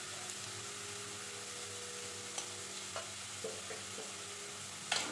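Potato cubes frying in mustard oil in a pan, with a steady sizzling hiss. A steel spatula stirs them, clicking lightly against the pan a few times, with a sharper knock near the end.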